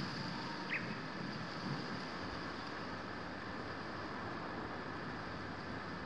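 Steady outdoor ambience: an even hiss with a little wind on the microphone near the start, and one short high chirp under a second in. The crossing bell is not ringing.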